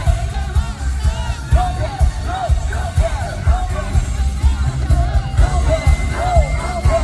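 Live pop music over a concert sound system: a sung melody over a heavy pounding bass beat, recorded from the audience.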